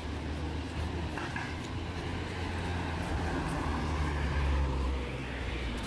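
Engine running with a steady low drone over outdoor background noise, growing louder about four seconds in and easing off near the end.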